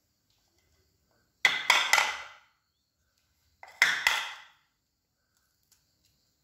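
Hard-boiled eggs knocked against a ceramic bowl to crack the shell: two quick groups of about three sharp taps, each with a brief ring from the bowl.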